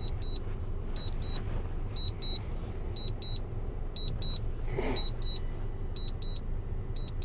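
Drone remote controller beeping in short high pairs, about one pair a second, the warning it sounds while the drone returns home on low battery. A steady low rumble runs underneath.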